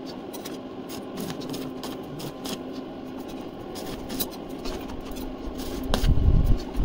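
Scattered light clicks and knocks over a faint steady hum, with a low rumble rising about six seconds in.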